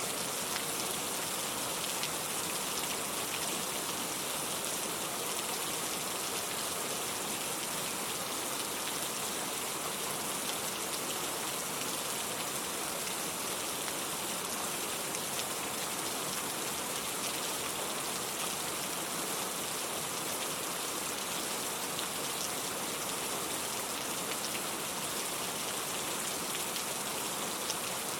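Steady rain falling, an even hiss with faint drops landing on a surface.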